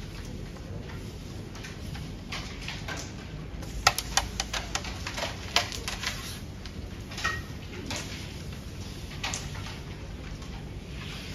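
Carrom striker shot about four seconds in: a sharp clack as the striker hits the coins, followed by a quick run of lighter clicks as the coins knock together and bounce off the wooden frame. A few scattered clicks follow later.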